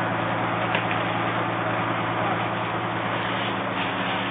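Fire apparatus engine running steadily: a constant low hum under a dense wash of noise.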